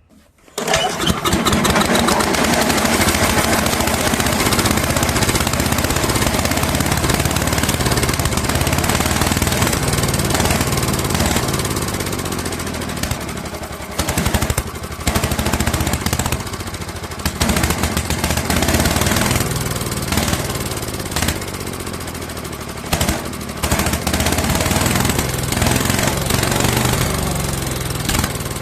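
Small gasoline engine of an old Craftsman chipper shredder catching about half a second in and running unevenly at full throttle, stumbling and dipping several times. It is a long-stored engine not yet getting steady fuel at the carburetor and being kept going on carb cleaner.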